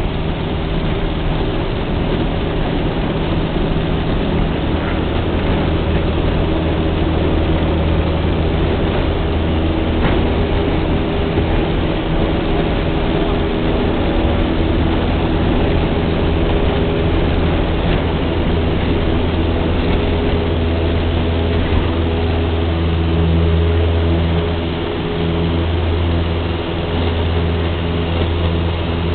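Single-engine light aircraft's piston engine and propeller running steadily, heard from inside the cabin, with a brief dip in engine sound near the end before it picks back up.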